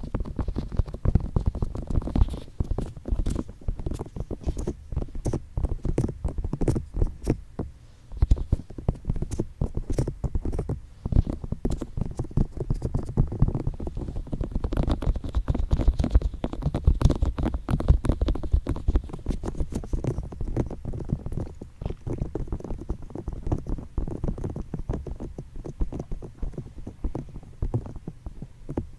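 ASMR ear tapping and ear touching: fingertips rapidly tapping and rubbing on the microphone's ears, making a dense, muffled patter of thumps with a few short pauses.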